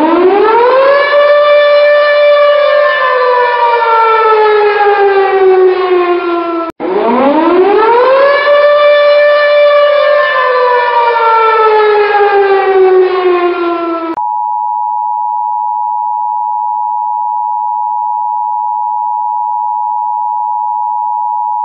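Civil defense siren giving two wails, each rising quickly, holding briefly, then falling slowly over several seconds. About fourteen seconds in, the siren gives way to the steady two-tone Emergency Alert System attention signal.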